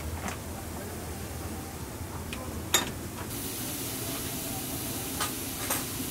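Steam hissing steadily from a stainless steel dumpling steamer cabinet, with one sharp click a little before the middle; the hiss turns brighter about halfway through.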